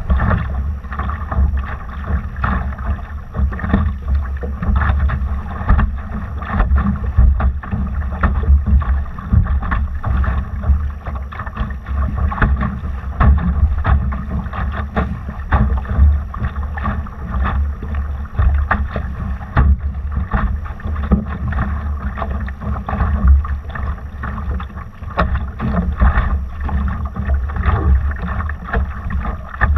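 Wind buffeting the microphone with a heavy, uneven rumble, over water rushing and slapping against a Laser dinghy's hull under sail.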